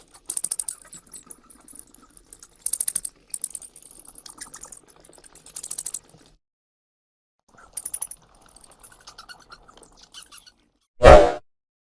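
Bat chittering in rapid trains of high squeaks and clicks, in two spells with a pause of about a second and a half between them. Near the end, a single loud, short burst of noise.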